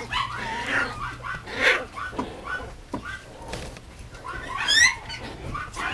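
Mame shiba puppy giving short high yips and whimpers as it plays with a toy, with one louder rising yelp near the end.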